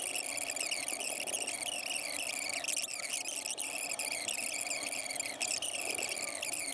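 A steady chorus of chirping crickets, laid in as a sound effect over a passage cut from the conversation.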